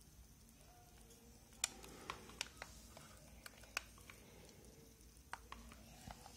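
Faint clicks and light knocks from a plastic paddle-brush hair straightener being handled, about nine in all and irregularly spaced. The loudest comes a little under two seconds in.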